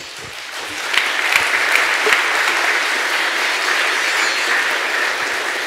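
Audience applauding, swelling over the first second, then holding steady before easing slightly near the end.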